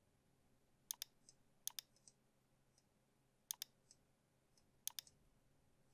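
Computer mouse button clicking, faint: four quick pairs of clicks spread over a few seconds.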